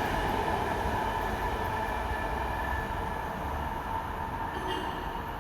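E 68000 passenger train moving away along the line, its rolling noise on the rails fading gradually.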